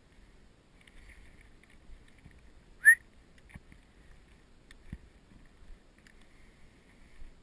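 A single short, sharp whistle rising in pitch about three seconds in, over faint footsteps on sand.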